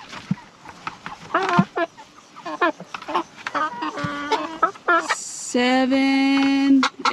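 Cornish cross broiler chicken calling: scattered short clucks, then one long, loud, steady squawk about five and a half seconds in.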